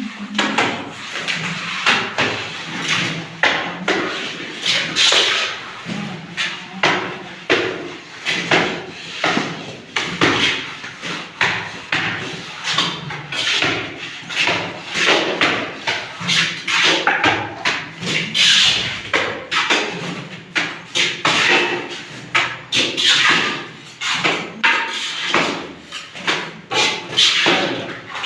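Irregular knocks and scrapes of masonry hand tools, such as trowels working plaster on a brick wall, echoing in a bare room.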